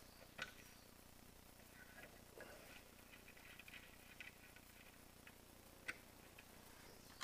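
Near silence broken by a sharp click about half a second in, a run of faint light ticks in the middle and another click near the end: small metal-tool sounds from undoing a bolt on a tractor cab door's quarter-glass frame.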